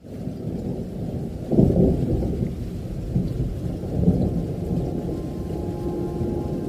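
Rain with rolling thunder, muffled, the thunder swelling about one and a half seconds in and again near four seconds.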